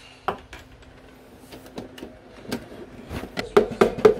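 Metal clicks and knocks of an espresso portafilter, dosing cup and stainless tamper being handled, with a quick cluster of knocks near the end as the coffee grounds in the portafilter are tamped.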